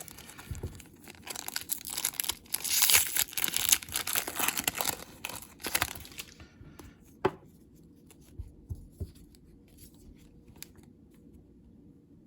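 Foil booster-pack wrapper being torn open and crinkled for about six seconds, then a single sharp click and a few light ticks.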